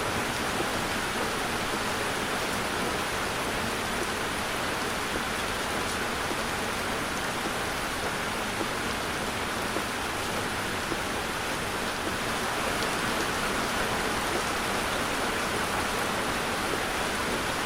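Heavy rain pouring on a car, a steady, even hiss without letup.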